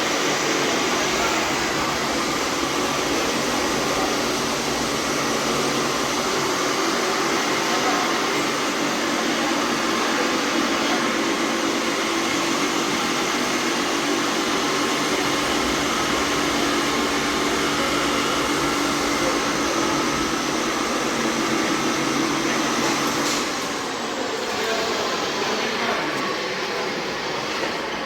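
A steady mechanical whir with a low hum, which drops a little and thins out near the end.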